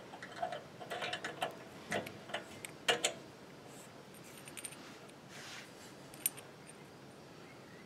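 Light metal clicks and clinks as a metal intake adapter is handled and fitted at a small engine's carburetor. A run of them comes in the first three seconds, the loudest near the third second, followed by a few sparse ticks.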